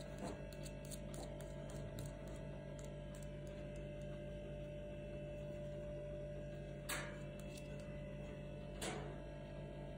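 Steady hum holding a fixed tone, broken by two short clicks near the end, about two seconds apart.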